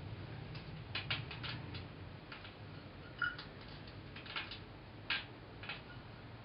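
Light, scattered ticks and clicks of crushed walnut pieces being sprinkled by hand onto kabocha squash slices on a metal baking tray, one or two with a brief ringing clink, over a low steady hum.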